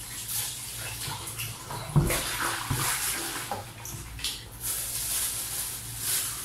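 Kitchen faucet running into a sink, water splashing as hands are rinsed under the stream, with a sharp knock about two seconds in. Near the end a plastic bag rustles as it is handled.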